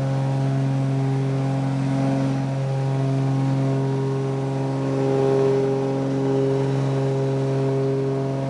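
Cessna 402B's twin piston engines and propellers droning steadily at climb power after takeoff, heard inside the cockpit, with a slow rise and fall in level.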